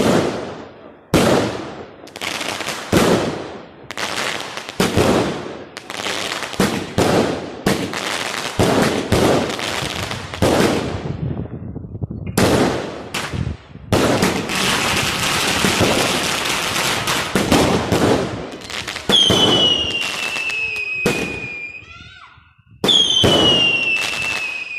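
Chinese consumer fireworks going off: a rapid series of sharp bangs, each ringing out briefly, with a dense stretch of crackling in the middle. Near the end come two long whistles that fall slowly in pitch.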